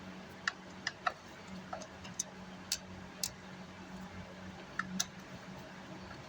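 Light, irregular clicks and ticks of a screwdriver and small metal parts being handled while taking apart a car amplifier, over a faint, steady low hum.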